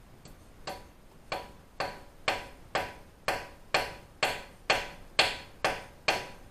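About a dozen sharp metallic clicks, evenly spaced at roughly two a second and starting about a second in, each ringing briefly.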